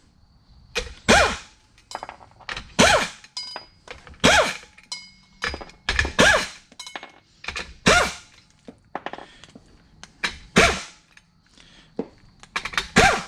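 Pneumatic impact wrench in short trigger bursts, hammering out the bolts that hold a twin-disc clutch assembly together. About seven loud bursts roughly every one and a half to two seconds, with smaller blips between them.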